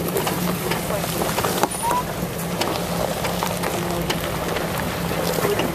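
Jeep Wrangler JK driving on a leaf-covered dirt trail: the engine runs low and steady under a continual crackle of the tyres rolling over dry leaves, twigs and stones.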